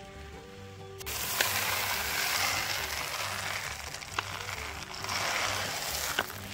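Chicken feed pellets poured from a plastic bucket into a wooden trough: a steady pouring hiss that starts about a second in, with a few sharper clicks. Background music with a steady beat plays underneath.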